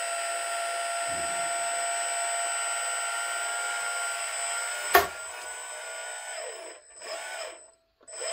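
Small hydraulic pump of an RC dump truck's hydraulic dump box whining steadily as the box is lowered. A sharp click comes about five seconds in, after which the whine wavers up and down in pitch and cuts out near the end.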